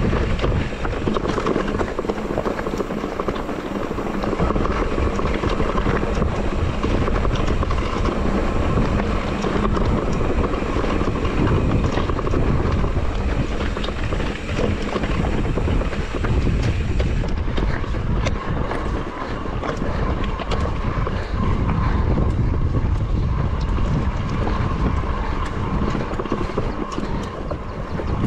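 Electric mountain bike clattering down a rocky track: tyres running over loose rock and the bike's frame and chain clanging with each jolt, in a constant stream of knocks. Heavy wind rumble on the microphone throughout.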